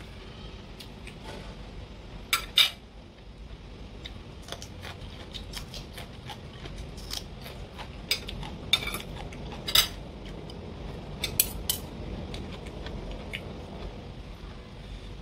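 Metal spoon and fork clinking and scraping against a ceramic plate and a steel serving tray while eating: scattered sharp clinks, the loudest pair about two and a half seconds in and another cluster later on.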